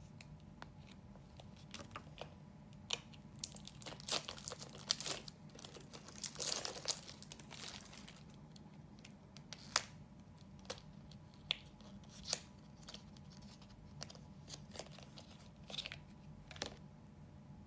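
Small product packaging being torn open and crinkled by hand, densest in the first half, followed by a handful of sharp clicks and taps as the items are handled. A faint steady low hum runs underneath.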